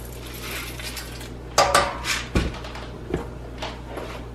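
A measuring spoon clinking and knocking against the rim of a speckled enamelware canning pot: a quick cluster of knocks about a second and a half in, then a few lighter clinks.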